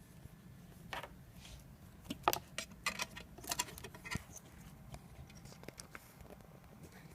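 Hands connecting a battery to a small robot: a run of small clicks and rattles from the connector, wires and plastic parts, bunched between about one and four seconds in, over a faint low hum.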